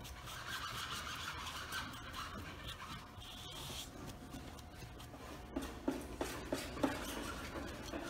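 A paintbrush spreading contact cement along the edge of a wooden board, making soft rubbing strokes, with a few light knocks about six seconds in.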